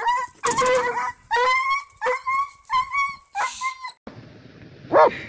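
Doberman pinscher yelping in a quick string of about seven sharp cries after touching an electric fence wire; the yelps stop about four seconds in.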